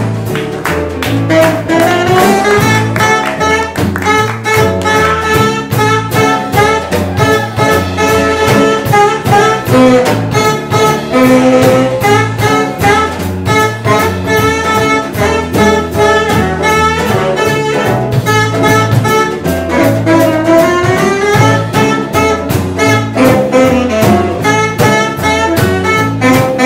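Live jazz band playing an instrumental break: a saxophone solo over piano, double bass and drums.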